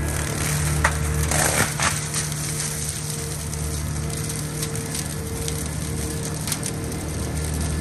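Gyrotrac 500HF forestry mulcher running steadily, a constant engine drone under the crunch of its cutting head chewing through brush. A cluster of sharp cracks comes about one to two seconds in.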